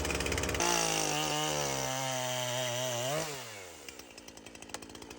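A chainsaw cutting wood, its motor holding a steady pitch. About three seconds in it revs up briefly, then winds down and fades as the saw comes off the cut.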